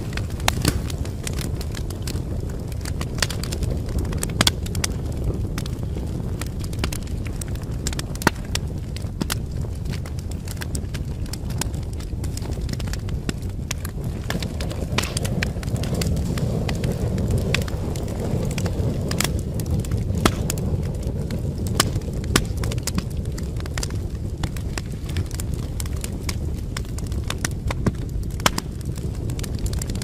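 Wood fire crackling and popping in a fireplace, with sharp pops scattered throughout, over a steady low rumble of snowstorm wind that swells briefly about halfway through.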